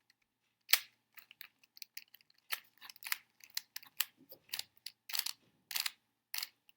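Irregular sharp plastic clicks and clacks of a GAN 356 X magnetic speed cube being handled and its layers turned. The cube is being tried out after a tension adjustment that has left it looser.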